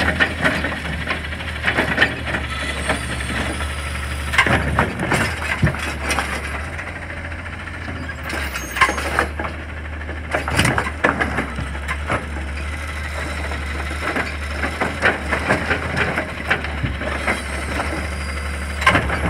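Automated side-loader garbage truck running steadily while its arm lifts and tips trash carts into the hopper, with repeated clanks and rattles of the carts and falling trash.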